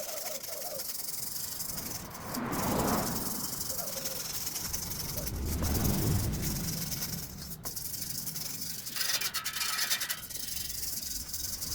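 Rubbing and scraping from hand work on a workpiece, coming in two broad swells, with a sharp click about two thirds of the way through.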